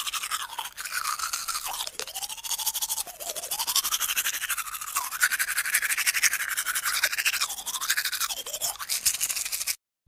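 Teeth being brushed with a toothbrush: rapid scrubbing strokes whose pitch keeps shifting as the brush moves around the mouth. The brushing stops shortly before the end.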